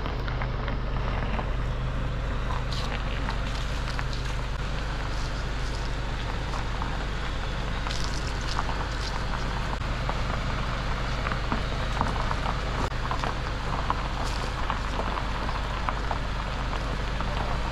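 A car's engine running at low speed as the car creeps and manoeuvres into a parking spot, a steady low hum with scattered fine crackling.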